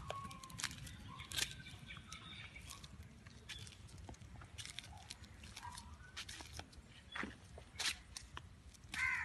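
Outdoor ambience: scattered short bird chirps and irregular sharp clicks over a faint steady low rumble.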